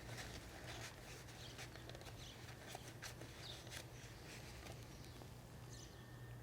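Faint scuffing, rubbing and light clicks from a rag wiping spilled oil off a small trimmer engine, scattered and irregular over a low steady hum.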